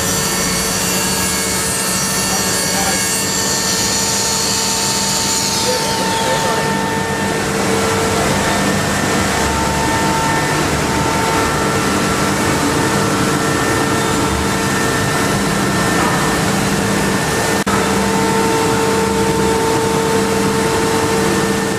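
HOMAG BAZ 32 CNC machining centre working a wooden panel. There is a loud high-pitched spindle whine that glides down in pitch and fades about six seconds in. After that a steady machine hum and rushing noise carry on.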